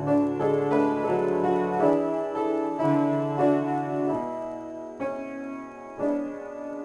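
Upright piano played solo: an improvised passage of chords and melody, which grows softer about four seconds in, with new chords struck twice near the end.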